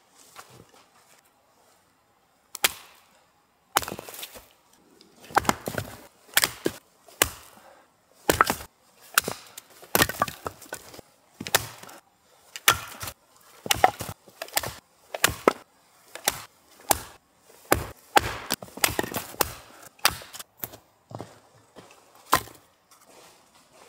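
Firewood being split by hand on a chopping stump: a long run of sharp wooden chopping strikes, a little over one a second, with the wood cracking apart. The strikes start about three seconds in and stop shortly before the end.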